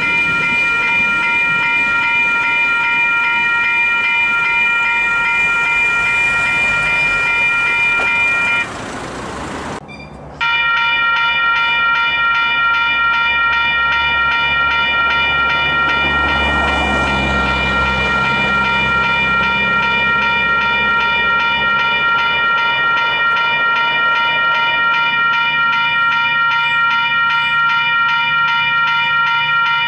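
Railway level crossing warning bells ringing continuously, several steady tones pulsing rapidly, over the rumble of a freight train at the start. The bells cut off about nine seconds in and, after a brief quieter gap, start again and keep ringing while the crossing barrier comes down.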